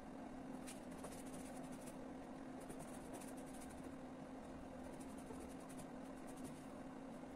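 Faint scratching of a paintbrush working acrylic paint on a canvas, in short runs of strokes that come and go, over a steady low hum.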